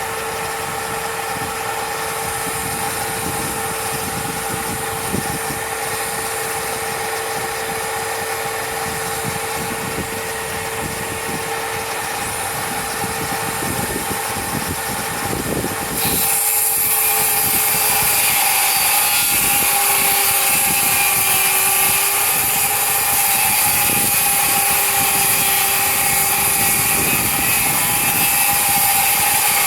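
Electric power tool running continuously with a steady motor whine; about halfway through it gets louder and harsher, with a hissing high end, and its pitch sags a little, as when the tool starts cutting.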